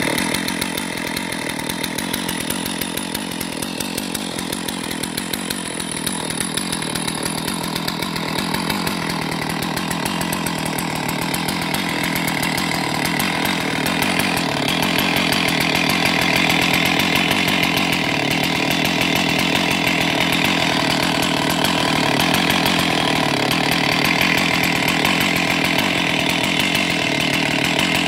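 Stihl MS 461 chainsaw's 76.5 cc two-stroke engine idling steadily, getting a little louder about halfway through.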